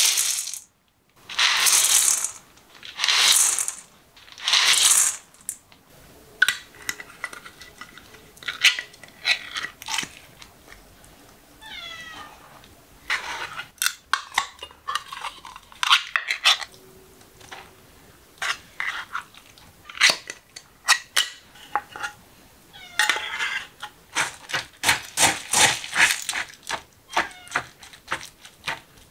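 Dry cat kibble poured from a scoop into a stainless steel bowl in three loud rattling pours, then the pull-tab lid of a can of wet cat food opened with a few sharp clicks. A cat meows near the middle, and near the end a spoon clinks and scrapes against the metal bowl as the wet food is mixed into the kibble.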